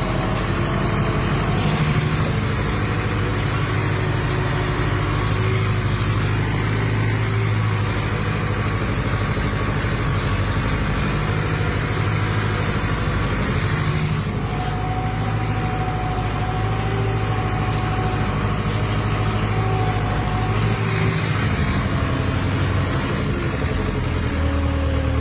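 Fiat 766 DT tractor's diesel engine running steadily while ploughing, with a brief rise in pitch near the end.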